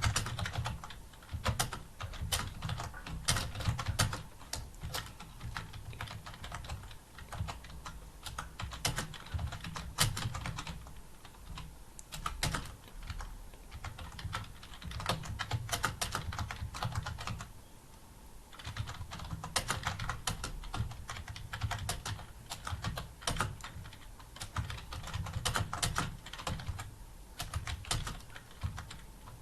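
Fast, continuous typing on a computer keyboard, keys clicking in quick irregular runs with a few short pauses.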